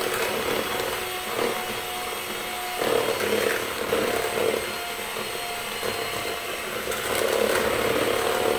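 Electric hand mixer running steadily, its twin wire beaters churning flour and cocoa into a wet cake batter in a plastic bowl. A constant motor hum underneath, with the level swelling and easing as the beaters work through the batter.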